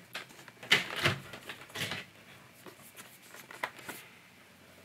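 Cardboard and plastic toy packaging being handled: scattered rustles and light clicks, busiest in the first two seconds and sparser after.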